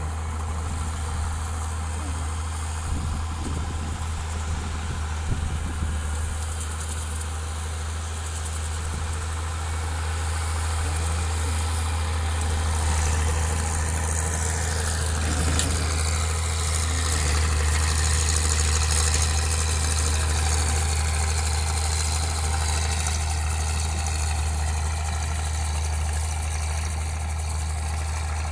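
Massey Ferguson 298 tractor's four-cylinder diesel engine running steadily under load as it pulls a chopper through crop stubble. It has a constant low hum and gets louder through the middle as the tractor passes close.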